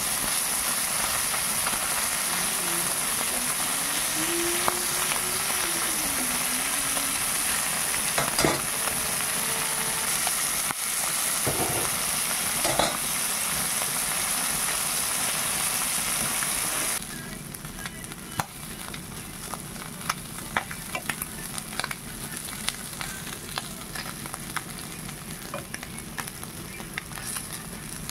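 Small whole fish shallow-frying in hot oil on a flat pan: a steady loud sizzle, with a few scrapes as a metal spatula turns them. About two-thirds of the way through, the sizzle drops quieter and becomes scattered crackling pops.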